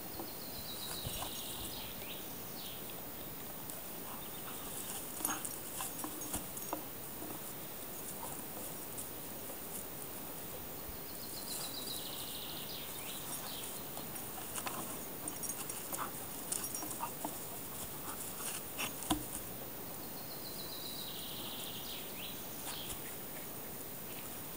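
A dog tussling with a heavy wooden log on grass: scattered soft knocks and rustles, the sharpest about 19 seconds in. A small songbird repeats a short falling trill three times, about ten seconds apart.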